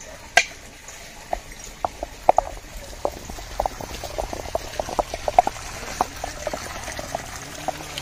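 A stone pestle grinding mint leaves, onion and garlic in a stone mortar: an irregular run of wet crunching knocks, two or three a second, with one sharper click about half a second in.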